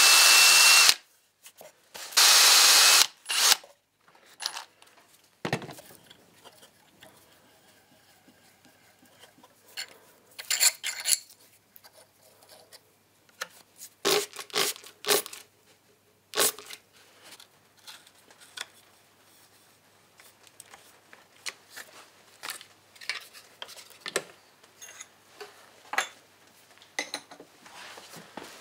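Einhell cordless drill run twice in short bursts, drilling into the end of the milling machine's table, each burst with a steady motor whine. After that come scattered clicks, taps and rubbing as small parts and hand tools are handled to fit the readout scale.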